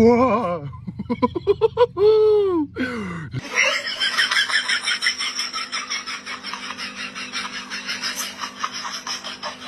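A few short, rising and falling vocal cries, then about six seconds of rapid, breathy human laughter.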